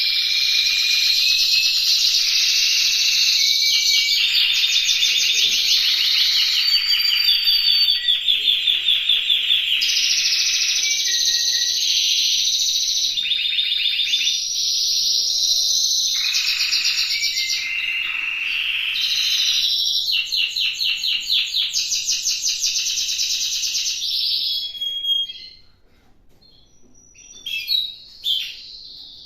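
Timbrado canary singing a long, unbroken song of rapid trills and rolls that change every second or two. The song breaks off about 25 seconds in, and a few short notes follow.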